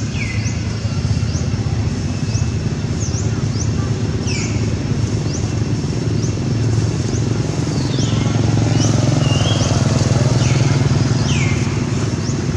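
A motor engine running as a low rumble, swelling louder from about eight seconds in and easing near the end, like a passing motorbike. Many short, high chirps falling in pitch sound over it throughout.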